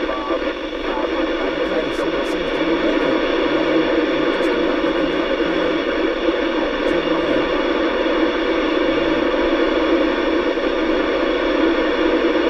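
Steady hiss of static from a Yaesu FT-8900R FM transceiver with its squelch open on the International Space Station's 145.800 MHz voice downlink, with no clear voice coming through.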